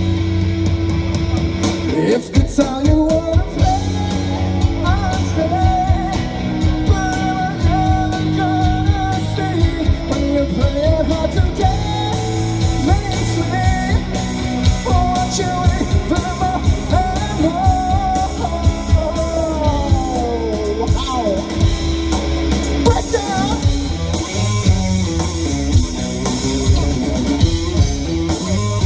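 Live rock band playing loudly: electric guitars over a steady low bass, with a sustained melody line on top that bends and slides, dipping down around two-thirds of the way through.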